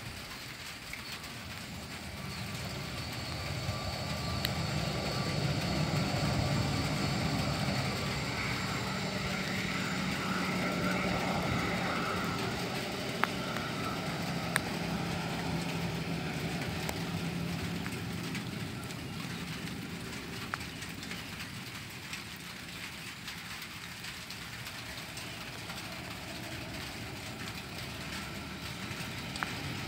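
Twin-engine jet airliner taxiing with its engines at idle: a steady rumble with a faint high whine. It grows louder over the first several seconds and eases off again in the second half as the plane passes.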